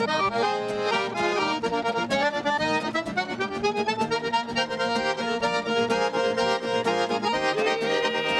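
Gaúcho folk music with an accordion leading an instrumental passage over a steady strummed and rhythm backing, with no singing.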